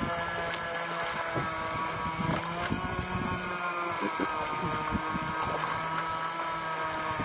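Outrigger fishing boat's engine running steadily, its pitch dipping slightly about four seconds in.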